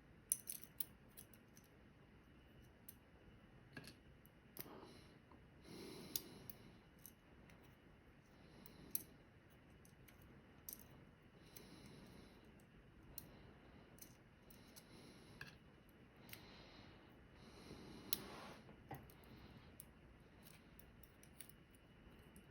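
Faint, scattered small clicks of tiny metal parts being handled as the driver pins are taken out of a Medeco Original lock cylinder. The clicks come in a quick cluster at the start, then irregularly, with a couple of soft rustling swells.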